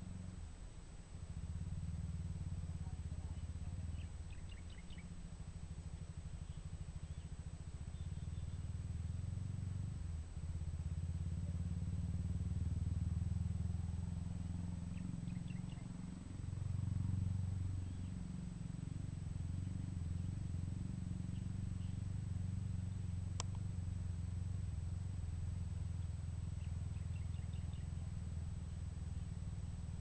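Low rumble of wind buffeting the microphone, swelling and easing in gusts, with a few faint bird chirps now and then.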